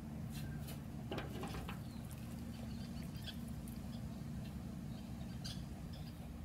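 Quiet background: a steady low hum with a few faint, scattered clicks and ticks.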